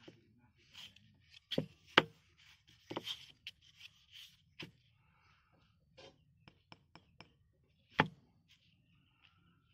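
A small wooden board handled on a tabletop: a handful of sharp knocks as it is turned over and set down, the loudest about two seconds and about eight seconds in, with light rubbing and scraping of hands on the wood between.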